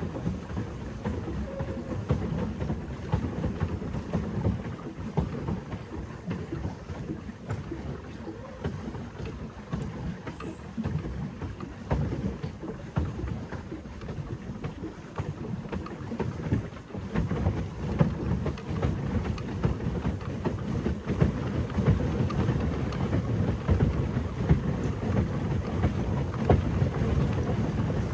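Pedal boat moving through water, with an uneven low rumble of wind buffeting the microphone over the churning water.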